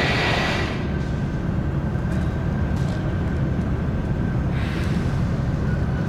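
Car ferry Osado Maru's machinery rumbling steadily as the ship works away from the quay, with a faint steady whine over it. Two short bursts of hiss, at the start and about five seconds in.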